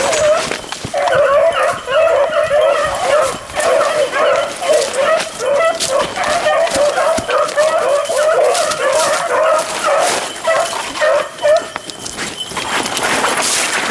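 Beagles barking on a rabbit's trail: rapid, overlapping short barks that stop about twelve seconds in, followed by rustling through dry leaves and brush.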